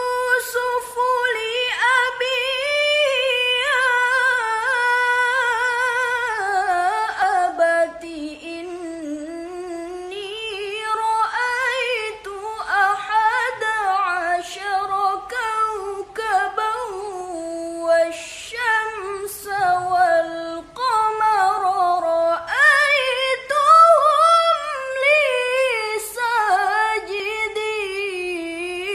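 A girl's solo voice singing unaccompanied in long, high phrases, the pitch sliding and wavering through ornamented runs, with brief pauses for breath.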